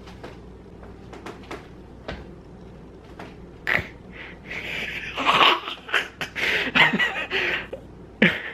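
Budgerigar close to the microphone, beak clicking as it nibbles at an ear, then a loud run of rapid chattering from about four seconds in until near the end.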